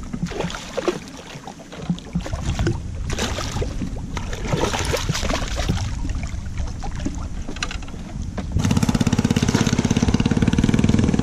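Water splashing and sloshing around a small boat, with scattered small knocks. About eight and a half seconds in, a steady, rapidly pulsing motor-like drone starts suddenly and runs on.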